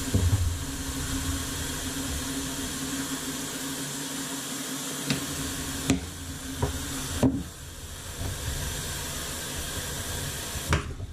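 Bathroom faucet running a steady stream into a lavatory sink that is filling with standing water because its drain is clogged, with a steady low hum under the splashing and a few light knocks around the middle. The water is shut off near the end.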